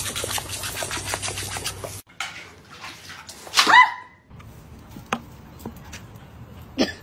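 Water hissing from a garden-hose nozzle while a dog snaps at the spray, then, after a cut, a dog's single short whining bark that slides down in pitch about halfway through. Faint scuffles and clicks follow.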